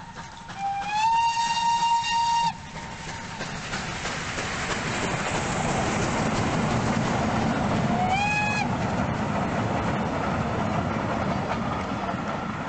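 Steam locomotive's whistle blowing a long blast that slides up in pitch and then holds, about half a second in, and a short blast of the same shape about eight seconds in. Between and under them runs the steady rushing noise of the locomotive and its coaches passing, working hard.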